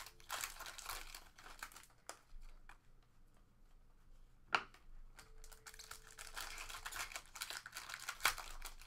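Foil trading-card pack wrappers crinkling and tearing as packs are opened and the cards handled, with a sharp tap about halfway through and another near the end.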